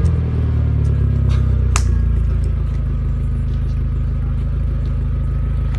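Dacia Logan's swapped-in 1.8 20-valve four-cylinder, heard through an aftermarket Turboworks exhaust, dropping back from a rev and then idling steadily. A couple of sharp clicks come about a second and a half in.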